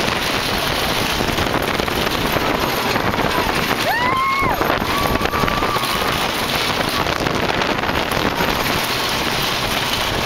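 Wooden racing roller coaster train running along the track at speed, with wind rushing over the microphone as a steady loud roar. A rider cries out about four seconds in, with a shorter call just after.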